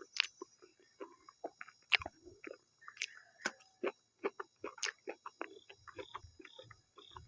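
Close-miked mouth sounds of a person eating maize dhido with sisnu (stinging nettle) curry: chewing and lip smacks in an irregular run of short clicks.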